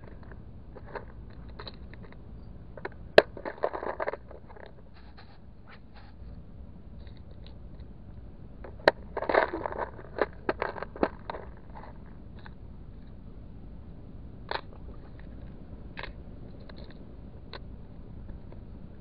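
Small plastic lure box handled in gloved hands: sharp clicks and rattling in two short bursts a few seconds apart, then a few single clicks.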